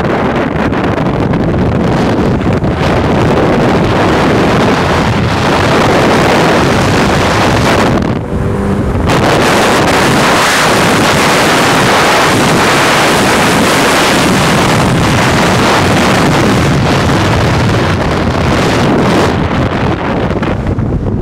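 Heavy wind buffeting the microphone of a camera held out of a moving car's window, mixed with engine and road noise; it eases briefly about eight seconds in.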